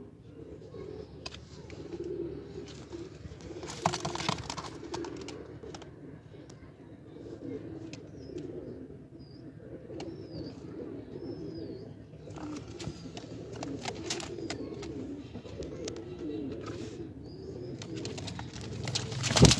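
Domestic pigeons cooing continuously, a low rolling warble. A few short high bird chirps come in around the middle, and a loud clattering knock sounds just before the end.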